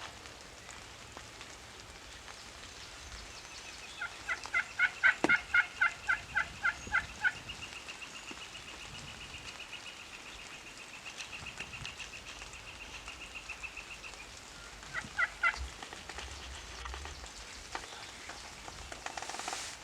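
Turkey yelping: a run of about a dozen loud yelps, roughly three or four a second, about four seconds in, then a faint fast high trill, and three more short yelps about fifteen seconds in.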